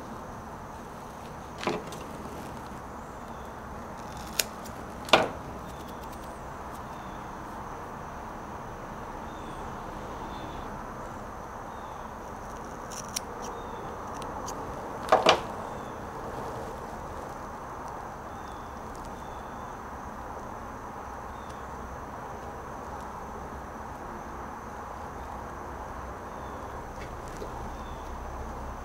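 Steady background hiss with a few sharp clicks and taps from hands working fly-tying tools and materials at the bench: the loudest click comes about five seconds in, and a quick double click comes about fifteen seconds in.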